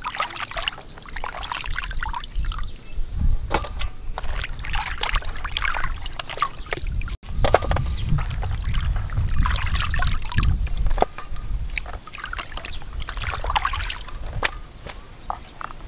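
Water sloshing, trickling and splashing irregularly as hands wash whole fish in a plastic basin. A low rumble comes in during the second half.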